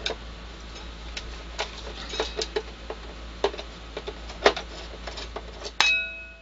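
Irregular light clicks and taps of a screwdriver working screws out of an LCD monitor's metal frame. Near the end comes one sharper metal clink that rings on briefly.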